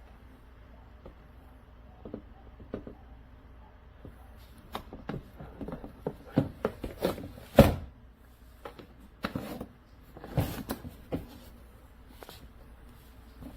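Irregular knocks and clicks of objects being handled, with one heavier thump about seven and a half seconds in.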